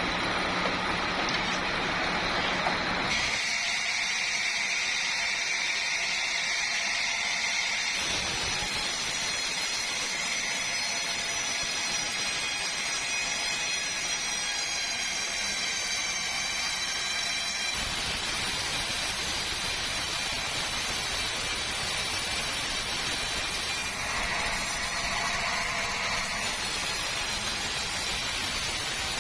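Sawmill running and sawing through a log, a steady mechanical noise with a high whine over it; the sound changes abruptly several times, as between separate cuts.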